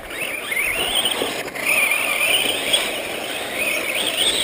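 Motor of a radio-controlled off-road truck whining, its pitch rising and falling as the throttle is worked through the corners.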